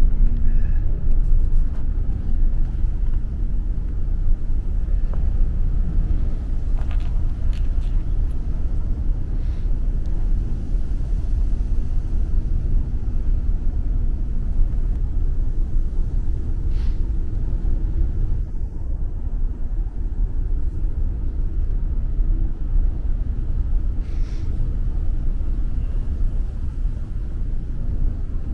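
Steady low rumble of a large car ferry under way at sea, heard on its open deck, with a faint engine hum and wind on the microphone.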